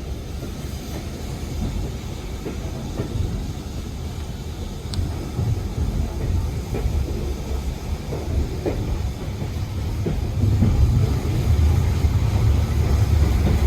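Heritage railway passenger coach running along the track, heard from inside: a steady low rumble of the wheels with scattered clicks, growing louder about ten seconds in.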